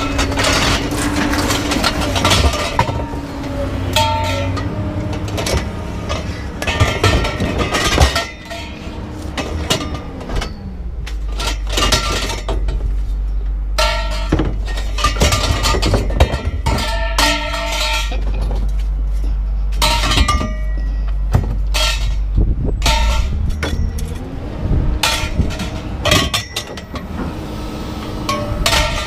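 Scrap metal being unloaded by hand and tossed onto a pile: repeated clanks and clatters, some pieces ringing briefly, over the steady hum of an engine running.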